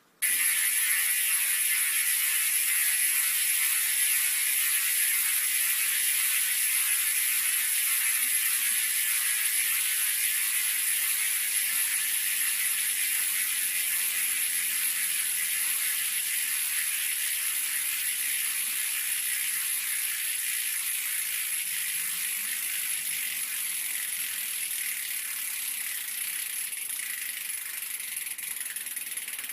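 Koozer XM490 bicycle hub freewheeling: the freehub pawls give a fast, loud, high-pitched buzzing click that starts suddenly and fades slowly as the spun wheel coasts down.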